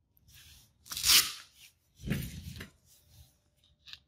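An 800-grit hook-and-loop sanding disc being handled and fitted to a sander's backing pad: a short ripping rasp about a second in, then a duller rub and bump around two seconds, with light paper rustles.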